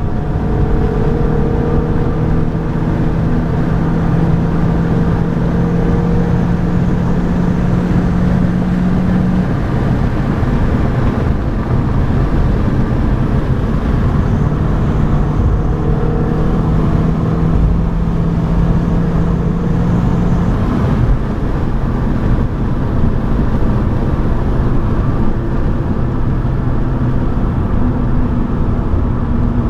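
A BMW 118i's four-cylinder petrol engine running hard, heard from inside the cabin over heavy road and tyre rumble while lapping a circuit. The engine note holds a steady pitch for several seconds at a time, sinks under the road noise around ten seconds in, and comes back for a while after about fourteen seconds.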